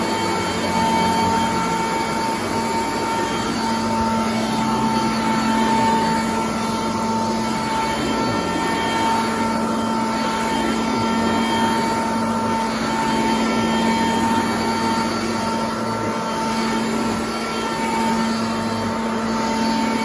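Sanitaire commercial upright vacuum running with a steady motor whine and rush of air while it is pushed back and forth over frieze carpet.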